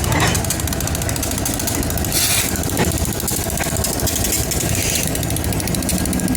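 Loaded coal train's diesel locomotive running steadily, a constant low engine hum with a brief louder hiss about two seconds in.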